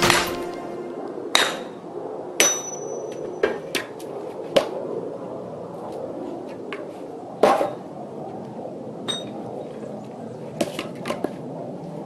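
Irregular knocks and clinks of firewood being split by hand, a steel splitting tool striking logs. There are about a dozen strikes, one about two and a half seconds in that rings briefly with a thin metallic tone, and the loudest about seven and a half seconds in. Music fades out at the start.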